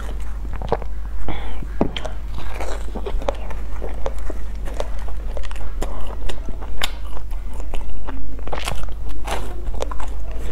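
Close-miked chewing and biting of a soft filled bread bun, with many short wet mouth clicks and smacks, and the soft tearing of the bun as it is pulled apart by hand.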